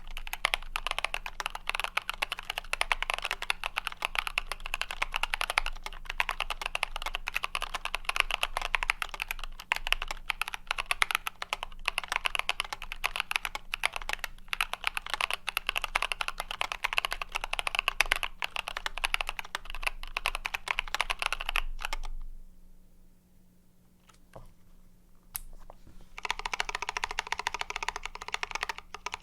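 YMDK Wings mechanical keyboard with Boba U4T tactile switches, PBT keycaps and foam-dampened plate being typed on in a fast, continuous run of keystrokes. The typing stops about 22 seconds in for roughly four seconds, with a single keystroke in the gap, then resumes.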